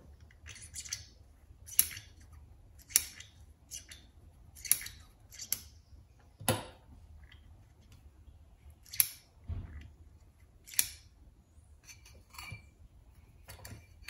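Hand pressure-tester pump worked in short strokes, each a sharp click, about ten at uneven intervals. It is pressurising a replacement carburetor float needle valve and seat to check whether it seals.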